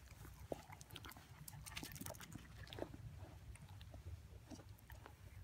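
Faint close-up noises of a dog nuzzling and sniffing at a hand being held to it: small scattered clicks and rustles over a low rumble of the phone being handled.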